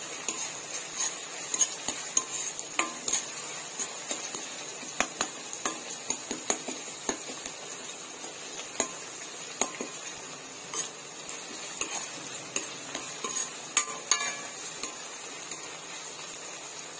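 Chopped onions sizzling in hot oil in a metal kadhai over a high flame, with a steel ladle clinking and scraping against the pan in irregular strokes as they are stirred.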